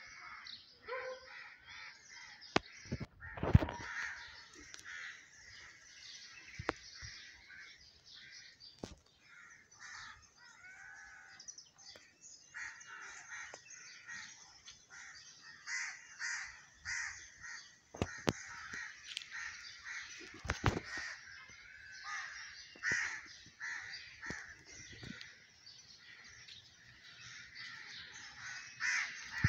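Birds calling over and over, with harsh, caw-like calls, broken by several sharp knocks and thumps, the loudest about three and a half seconds in.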